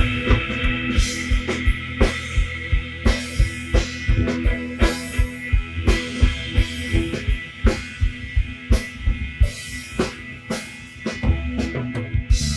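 Background music: a steady drum-kit beat with bass drum and snare, about three hits a second, over held pitched notes; the beat thins out about ten seconds in before a sustained low note near the end.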